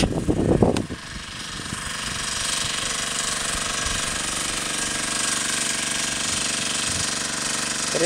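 A knife chopping on a plastic cutting board for under a second. Then a steady, fast, rattling drone from a portable generator's small engine running at the camp.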